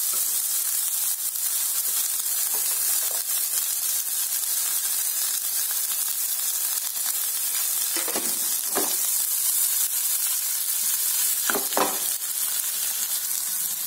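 Chopped onions sizzling steadily as they fry in ghee with mustard seeds and chana dal in a pan.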